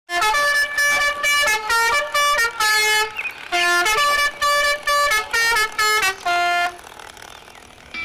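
A short tune played in a buzzy, horn-like tone: two phrases of quick notes, the second ending on a longer held note, after which it stops a little before the end.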